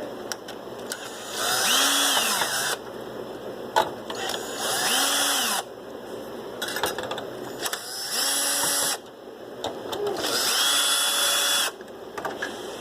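Cordless electric screwdriver backing out the four screws of a CPU heatsink: four short runs of about a second each, the motor winding up and down each time, with small clicks between.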